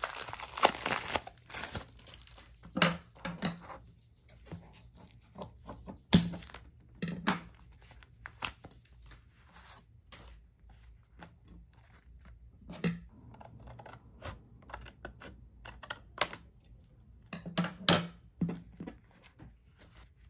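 Paper and card being handled on a desk: a folded paper sleeve and printed thank-you cards rustling and crinkling, with irregular sharp taps and crackles, the loudest about six seconds in and again around eighteen seconds.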